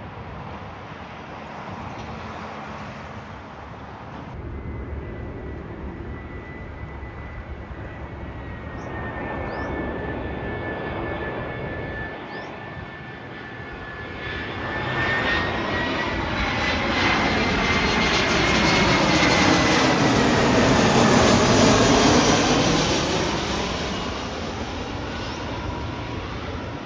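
Jet airliner passing overhead: a steady high engine whine, then engine noise that builds over several seconds, peaks with a sweeping, shifting tone as the aircraft goes by, and begins to fade near the end.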